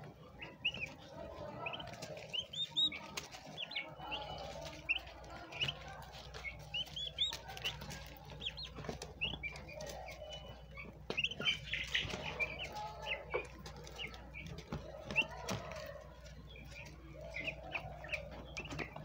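Turkey poults peeping over and over in short, high calls, with scattered clicks and rustles as they peck at soil and seedlings.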